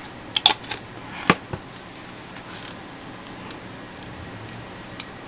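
Light clicks and taps of small plastic model-kit parts and a glass bottle being handled on a work mat, with a short rustle about two and a half seconds in.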